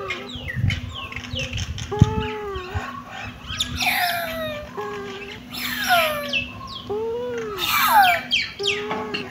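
Several kittens mewing over one another: a string of short high-pitched calls, some arching and many sliding down in pitch, with a faint steady hum underneath.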